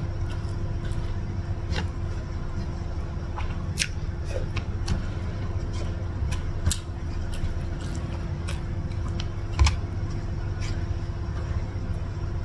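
Close-miked eating sounds: fingers gathering rice on a wooden tray, with scattered small sharp clicks and crackles and one louder knock near the end, over a steady low hum.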